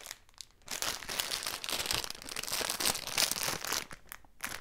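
Thin clear plastic bag crinkling as it is opened and handled by hand, starting about a second in and pausing briefly near the end.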